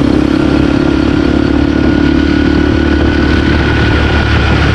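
Motorcycle engine running at a steady speed with a constant hum and a faint, steady high tone above it.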